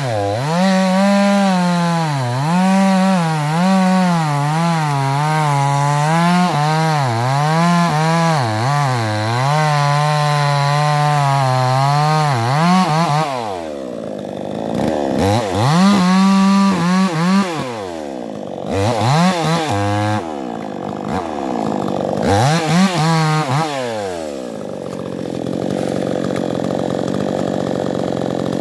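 Stihl two-stroke chainsaw running at high revs, its pitch wavering as it bogs and recovers while cutting wood. About halfway through the revs drop and climb back up several times, then settle into a steadier, lower sound near the end.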